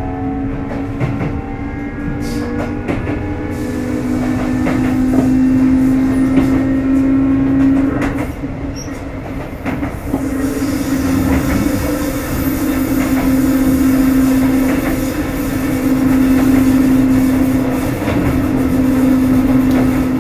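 Sotetsu 8000 series electric train running, with its Hitachi IGBT-VVVF traction motors whining: the whine glides in pitch for the first couple of seconds, then settles into a steady hum over the rumble of the running gear, with wheels clacking over rail joints.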